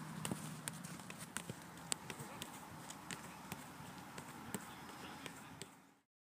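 Irregular sharp knocks of feet touching and passing a football, over a steady background murmur. The sound cuts off abruptly near the end.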